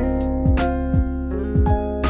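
Background music: keyboard chords over a steady beat.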